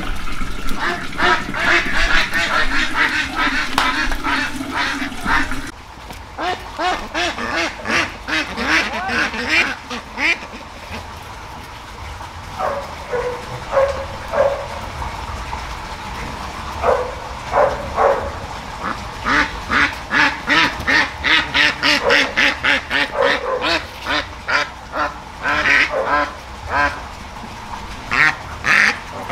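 Domestic ducks quacking, many short calls in quick runs. A louder, denser stretch of calling fills the first six seconds and stops abruptly.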